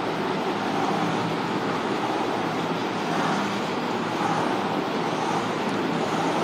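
Chalk scratching steadily on a blackboard as a wave with many close up-and-down strokes is drawn.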